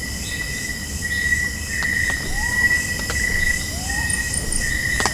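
Night insect chorus of crickets trilling steadily in a high, pulsing drone. Two faint rising calls slide upward about two and four seconds in.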